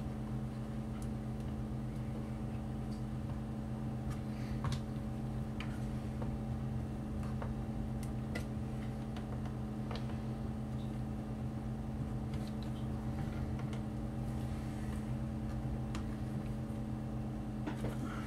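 Scattered faint clicks and taps of hands working inside an open laptop, plugging in the battery connector and driving a small screw with a precision screwdriver, over a steady low hum.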